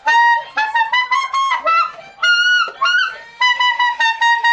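Tenor saxophone, a Selmer Reference with a bronze metal mouthpiece, played high in the altissimo register: a quick run of short, separate notes with a few slides between them, ending on repeated short notes on about the same pitch.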